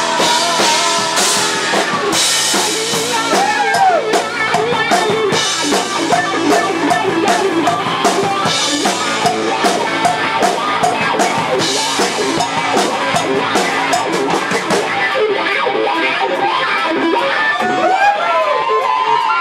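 Live rock band playing an instrumental break, with drum kit, guitar and bass and no singing.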